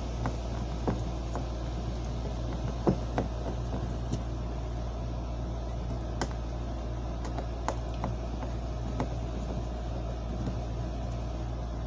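Scattered light clicks and taps of a screwdriver and metal model-train track being handled and adjusted by hand, over a steady low hum.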